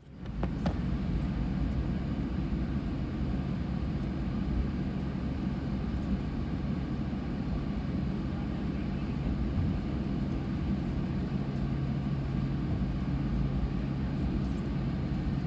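Cabin noise inside an Airbus A320 taxiing: the engines at taxi idle give a steady low hum and rumble.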